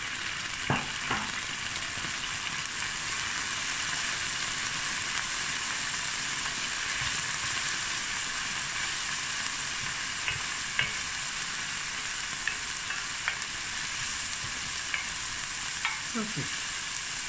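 Chopped onions sizzling steadily in hot oil with a little water in a stainless steel pan. A wooden spatula stirs them, giving a few light clicks and scrapes against the pan.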